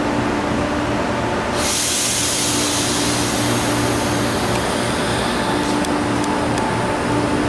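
Amtrak electric train at a platform: a steady hum with several fixed tones. About a second and a half in, a continuous air hiss joins it and keeps on as the train starts to move.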